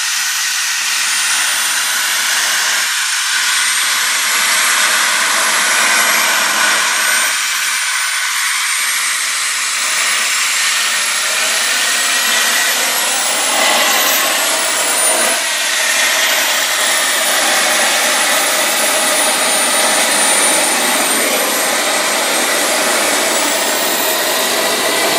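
Twin Jetcentral Super Eagle model turbine engines (about 30 lb thrust each) of a large RC F-4 Phantom running, a loud jet hiss with a thin high-pitched whine. The whine wavers up and down in pitch around the middle as the throttle shifts.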